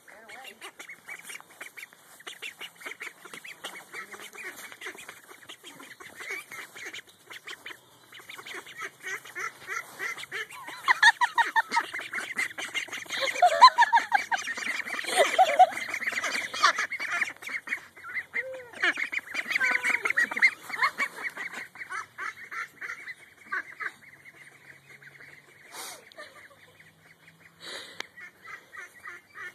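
A flock of domestic ducks quacking and chattering nonstop, a dense run of short, rapid calls that swells loudest in the middle and thins out near the end.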